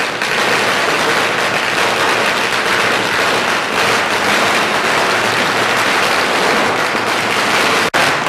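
A long string of firecrackers going off in a rapid, continuous crackle of bangs, broken by a split-second gap near the end.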